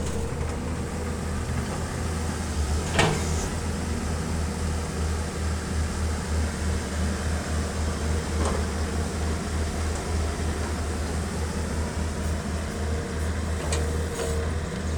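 Excavator's diesel engine running steadily at a low, even pitch, with a sharp knock about three seconds in and two fainter knocks later.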